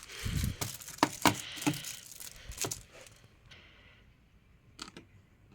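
A quick run of clicks and knocks with some rustling, as of things being handled, over the first three seconds, then quiet apart from a single short click near the end.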